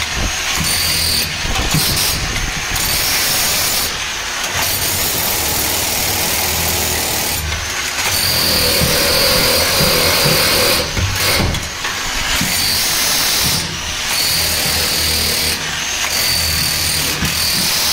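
Electric power tool running hard as it breaks out old cement from a steel boat's bilge, with a high whine that comes and goes and short breaks every few seconds.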